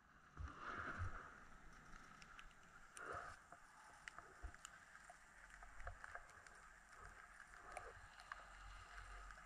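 Near silence while riding a chairlift: a faint steady hiss with a couple of soft rustling swells and scattered small clicks.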